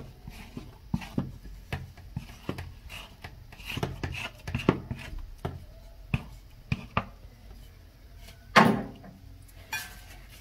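A blue plate scraping and knocking against an aluminium saucepan as stiff cassava-and-sorghum dough (posho) is scooped and pressed into it: irregular scrapes and knocks, with one louder thump near the end.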